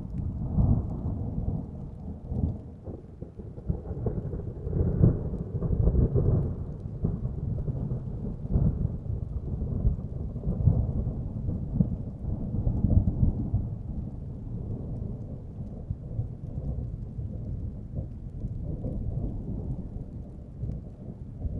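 Thunderstorm: low, continuous rolling thunder over rain, swelling and fading in repeated rolls, loudest about a quarter of the way in and again around the middle.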